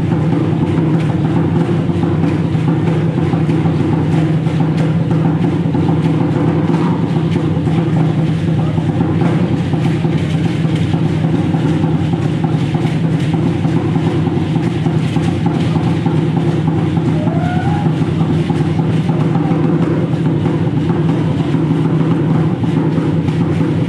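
Loud, steady drumming for Aztec-style danza, beaten on without a break so that it runs together into a continuous rumble.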